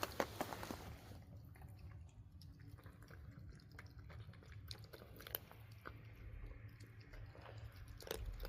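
A cat chewing its food, heard as faint scattered small clicks, with a louder cluster right at the start.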